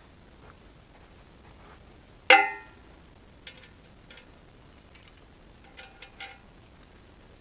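A single sharp metal-on-metal clang that rings briefly about two seconds in, followed by several lighter metallic clinks, as steel parts and tools are handled during an excavator bucket change.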